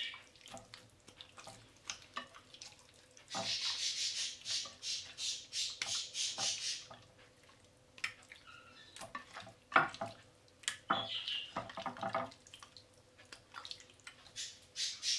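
Hands mixing and massaging raw lamb fillets in an oily marinade of olive oil, balsamic vinegar and whole-grain mustard, making wet squelching and slapping sounds. There is a longer run of squishing from about three to seven seconds in, then shorter squelches and clicks.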